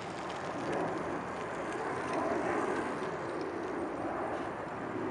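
Jet engines of a Boeing 737 departing at takeoff power, heard as a steady rushing noise that swells slightly about two seconds in.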